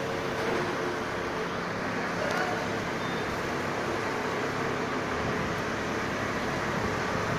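Truck-mounted crane's engine running steadily, a constant hum with a faint steady whine, as it powers the lifting boom.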